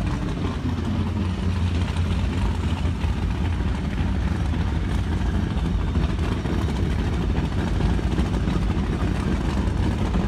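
Steady low rumble of big performance powerboat engines running at low speed on the water.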